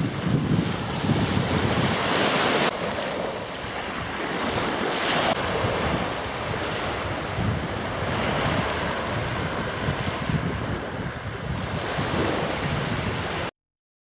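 Small sea waves breaking and washing up a pebbly beach, with wind buffeting the microphone in low rumbling gusts. The sound cuts off suddenly near the end.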